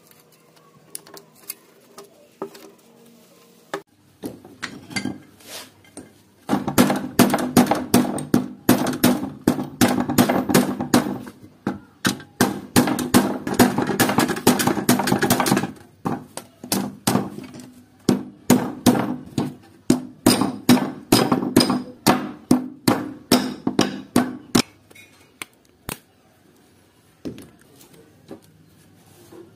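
Hammer blows on a steel punch, knocking out the rivets that hold a hand saw's plastic handle to its rusty blade. A few taps, then a long fast run of strikes, then slower blows about two a second that stop a few seconds before the end.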